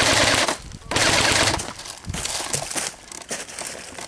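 JG G3 airsoft electric rifle firing on full auto: a burst that stops about half a second in, then a second burst of under a second. Softer crunching and rustling follow.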